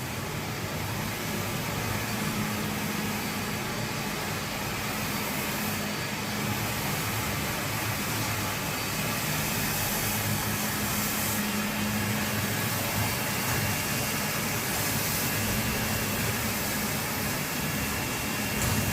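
F50 wet floor scrubber running, a steady motor whir with a low hum and a constant hiss.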